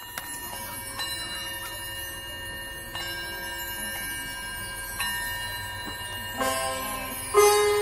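Marching band front-ensemble mallet percussion opening a show with bell-like struck notes, one about every two seconds, each left ringing. Near the end, fuller and louder chords come in.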